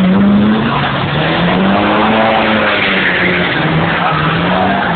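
Drift car's engine held at high revs, rising and falling with the throttle, while its tyres squeal and skid through a sideways slide.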